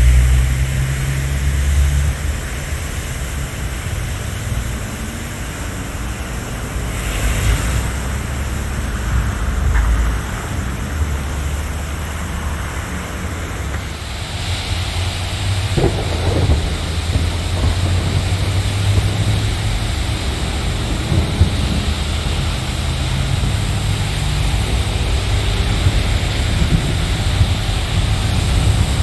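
Steady rushing of floodwater gushing up out of a flooded roadside drain, over a low rumble of road traffic and wind buffeting the microphone. The rush turns brighter and hissier about halfway through.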